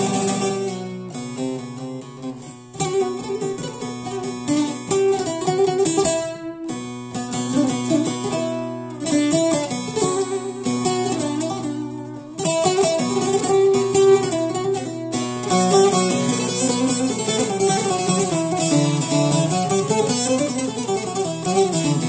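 Long-necked bağlama (saz) played solo: a plucked melody moving over a steady low drone from the open strings, with short pauses between phrases.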